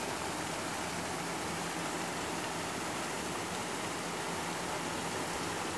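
Steady rushing and splashing of pond water churned by paddle-wheel aerators, with a faint low motor hum.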